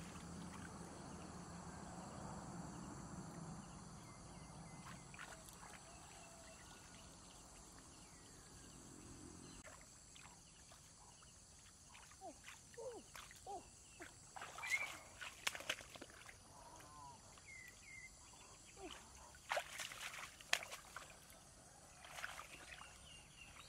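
Muddy shallow water sloshing and splashing as a person wades in it and gropes through it by hand. Quiet at first, then scattered small splashes and rustles from about halfway.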